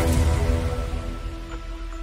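Background music: a loud electronic dance track fades out over about the first second, giving way to a quieter, softer track with held notes and light plucked notes.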